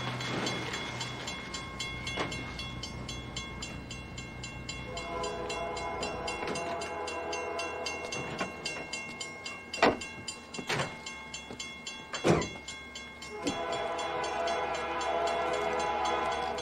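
A low steady rumble, with a long horn-like chord of several held tones sounding about five seconds in and again near the end. Three sharp knocks come in between.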